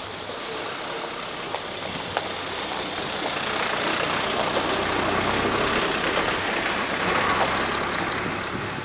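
Engine noise of a passing motor vehicle, swelling over several seconds and easing off again near the end.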